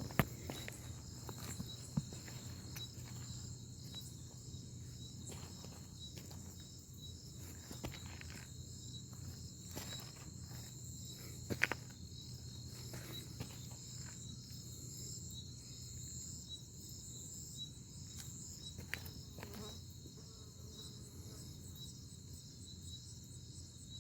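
Crickets chirping in a steady, fast pulsing trill, with a few short knocks and clicks: one just at the start, one about two seconds in, and a louder pair near the middle.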